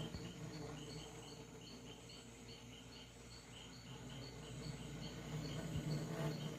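Refrigerator making the buzzing noise the owner likens to a swarm of bees: a steady low hum under a quick, high chirping pulse that repeats a few times a second. The cause is unknown to the owner.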